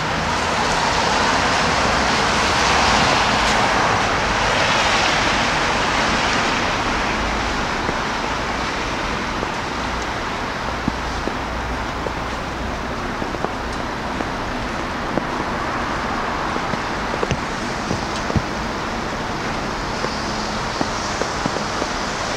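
Road traffic on a wet, snowy city street: a car passes, its tyres hissing, swelling over the first few seconds and fading by about seven seconds in, then a steady traffic hiss with scattered light ticks.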